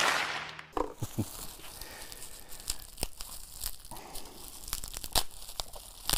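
Bubble wrap crinkling and crackling as it is pulled and crumpled off a small hand plane, with scattered sharp pops. A brief loud rush of noise opens it.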